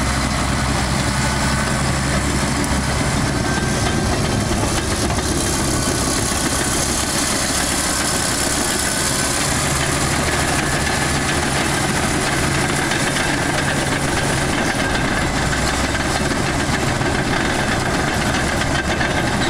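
Caterpillar D6H crawler dozer's six-cylinder diesel engine running steadily as the machine drives on its steel tracks, with the clatter of the tracks over the engine.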